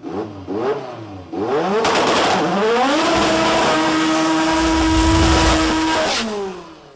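Turbocharged Honda drag car engine revving: a few quick blips of the throttle, then a long climb in revs that holds high and steady for about three seconds before dropping away and cutting off near the end.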